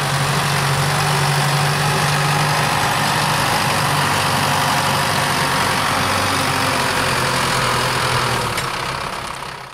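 Zetor Forterra tractor's diesel engine running steadily under load as it pulls a four-furrow reversible plough through wet mud. The engine drone fades out near the end.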